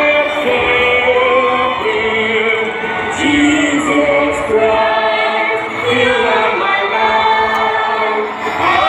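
A large crowd singing a song together, many voices holding long notes that change about once a second.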